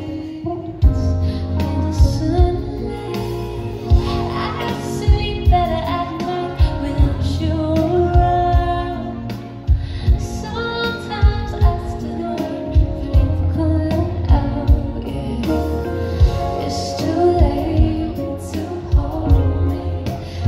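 Live concert music: a female vocalist singing over a band mix with a strong bass beat, picked up from the crowd on a phone, the bass heavy and boomy.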